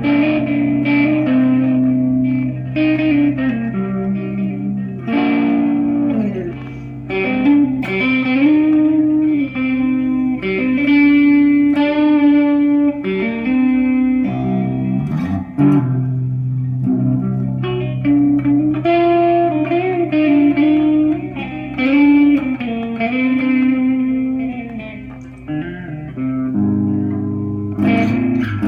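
ESP LTD electric guitar being test-played after a repair: held notes and chords with string bends and vibrato.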